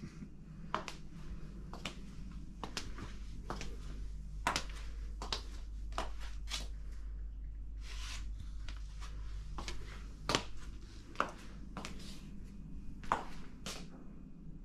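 Slow footsteps on a hard floor, about one light step a second, over a steady low hum.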